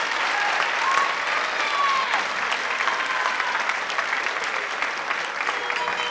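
Audience applauding steadily, with a few cheering voices about a second in.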